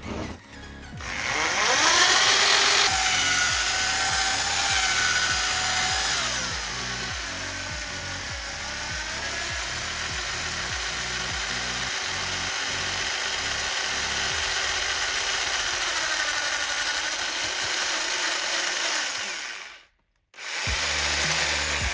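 Electric drill-mixer with a spiral paddle stirring thick tile adhesive in a plastic bucket. The motor whine rises as it speeds up about a second in, eases off a little around six seconds, then runs on steadily under the load, stopping near the end and briefly starting again.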